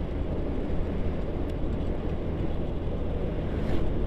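Honda Genio 110 cc single-cylinder scooter riding along at road speed: a steady engine drone mixed with wind and road rumble. A brief swell of another vehicle passing comes near the end.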